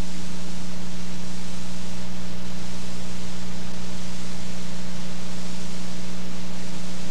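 Steady hiss with a constant low hum and no programme sound: the noise floor of an old videotape transfer.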